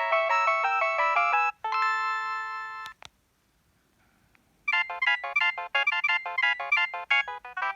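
Nokia 3120 mobile phone playing its preloaded polyphonic ringtones through its speaker. One melody of quick synthesized notes ends on a long held chord and a click. After about a second and a half of near quiet, the next ringtone starts with rapid, short, staccato notes.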